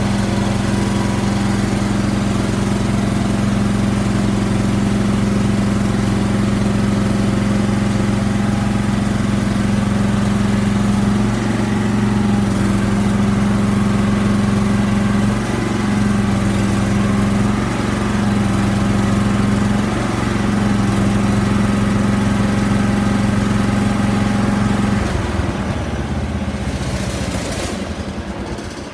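John Deere 216 lawn tractor engine running steadily, with a few brief dips in its note. It is switched off about 25 seconds in and runs down to a stop.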